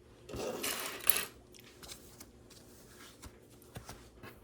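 A brief rustle in the first second, then scattered faint clicks of small plastic LEGO pieces being handled.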